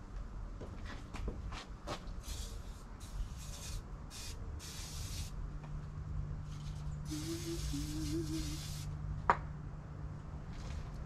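WD-40 aerosol can spraying in four short hisses and then one longer hiss of about two seconds, lubricating rubber grommets. A single sharp click comes near the end.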